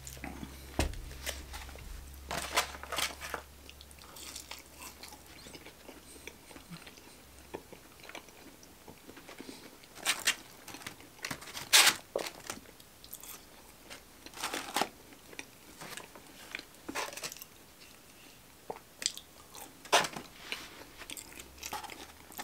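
Close-miked eating of fried chicken fingers and fries: crunchy bites and chewing, in irregular crunches, the loudest near the middle and again about 20 seconds in.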